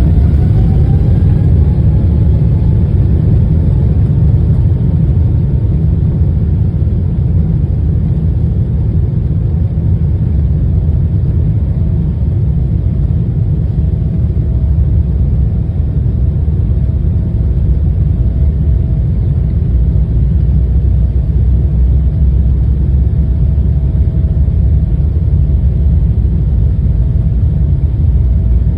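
Boeing 777-300ER jet engines at takeoff power: a loud, steady low rumble, with a whine that rises in pitch over the first couple of seconds and a steady whine from about ten seconds in.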